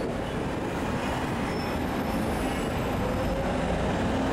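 City street traffic: a steady rumble of engines and tyres, with a vehicle's engine note rising slowly from about three seconds in as it draws near.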